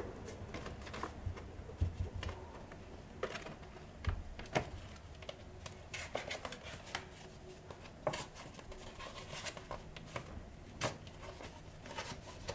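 Scattered light clicks, taps and knocks of hand work with small parts and tools, a few sharp clicks every second or so, with no steady machine running.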